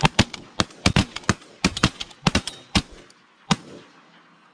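A rapid, uneven volley of shotgun blasts from several guns, about a dozen shots, some only a fraction of a second apart, ending about three and a half seconds in.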